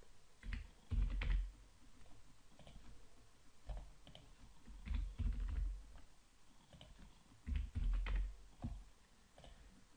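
Computer keyboard being typed on in several short bursts of keystrokes as numbers are entered.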